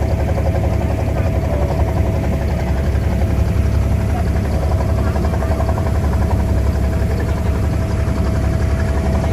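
A vehicle engine running steadily: a continuous low rumble with a constant hum above it.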